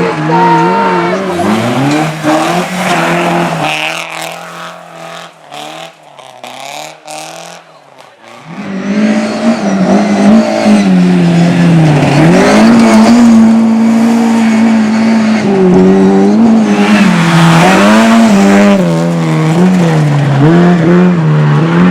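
A hill-slalom race car's engine revving hard. It fades away in the first few seconds, then about eight seconds in a car arrives loud, with its engine pitch rising and falling again and again through gear changes and lifts.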